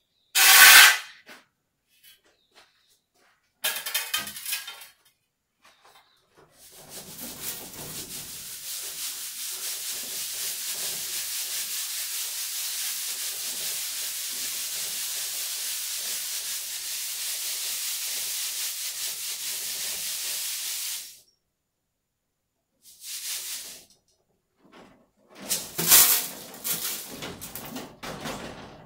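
Sand being sifted through a hanging round wire-mesh sieve: a steady rasping hiss of grains running through the screen as the sieve is shaken, lasting about fifteen seconds in the middle. Near the start a loud, short scrape of a shovelful of sand going onto the sieve, and a few sharp knocks near the end.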